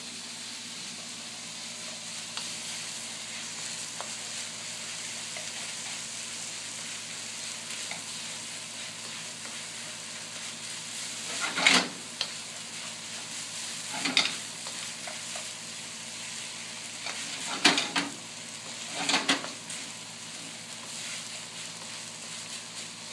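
Kimchi fried rice sizzling in a wok over a gas flame while a spatula stirs and mixes it, with a steady frying hiss. About halfway through and again twice near the end, the spatula scrapes and knocks louder against the wok, four times in all.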